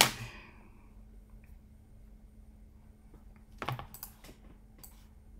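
Scattered clicks of a computer mouse and keyboard, with a sharp click right at the start and a brief louder knock about two-thirds of the way through.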